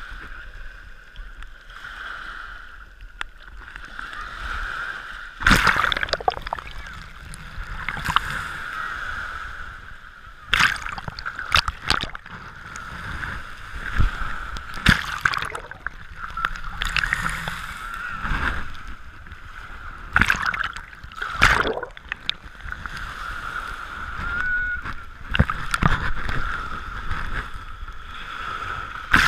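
Small sea waves breaking and washing up the sand at the water's edge, heard close up. Sudden loud splashes come every few seconds as the wash surges in.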